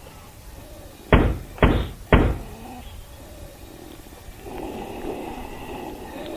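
Three loud thumps about half a second apart, like knocking or banging. A low, rough rumbling noise sets in past the middle.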